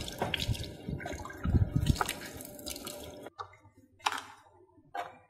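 Water from an outdoor tap running and splashing onto concrete as large dong leaves are rinsed under it. It cuts off abruptly about three seconds in, leaving two brief sharp sounds.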